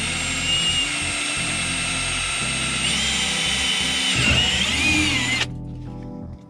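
Power drill running under load, boring a hole through half-inch polycarbonate sheet; its whine wavers and sags as the bit bites, then stops about five seconds in.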